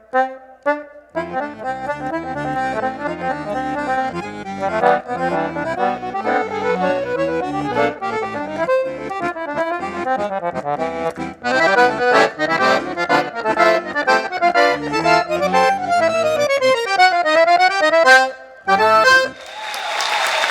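Accordion playing a lively piece with bass notes and chords under a melody. Fast up-and-down runs near the end lead to a final note. Applause breaks out just before the end.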